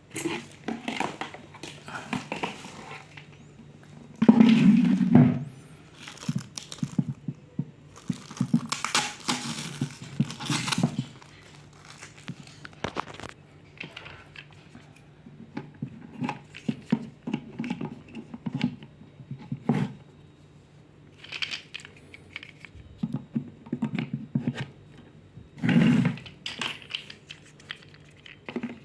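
Packaging being handled during an unboxing: plastic wrapping crinkling and tearing, with irregular knocks and clatters, and louder bursts of rustling about four seconds in and again near the end.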